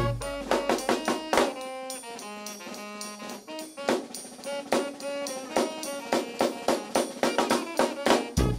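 A New Orleans-style brass band playing: trumpet, saxophone, trombone and flute over a sousaphone bass line and a steady snare and bass drum beat. Heavy low notes come in right at the start and again near the end.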